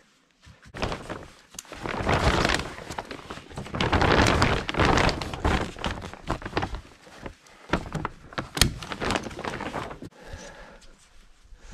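Construction plastic sheeting rustling and crinkling as it is handled and spread over the floor insulation, with scattered knocks and thumps. It starts about a second in and dies down near the end.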